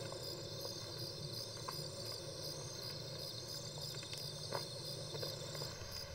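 Crickets chirping steadily as night-time ambience, with a couple of soft footfalls on dry soil about two and four and a half seconds in.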